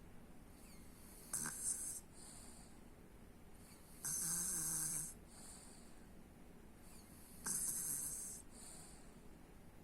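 A sleeping person snoring: three loud, breathy snores about three seconds apart, each lasting about a second.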